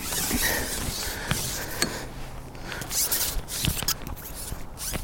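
Scraping and rustling handling noise with several sharp clicks, the loudest a little under two seconds in.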